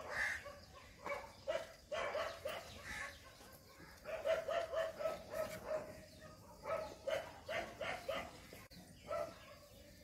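Faint animal calls, short and repeated, coming in several quick runs.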